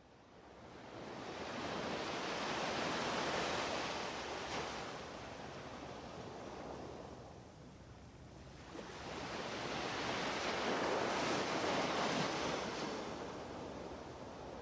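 Rushing surf noise from ocean waves, swelling and fading twice.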